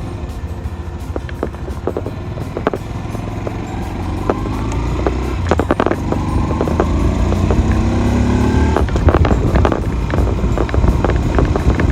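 Honda Super Cub C125's single-cylinder engine running under way, its pitch climbing steadily over several seconds and then dropping about nine seconds in, as when shifting up. Frequent sharp knocks and rattles run through it.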